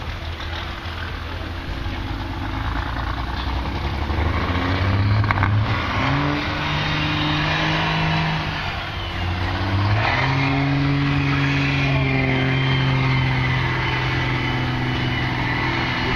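A large vehicle engine revs up and holds, eases off about eight or nine seconds in, then picks up again and runs steadily at the higher speed.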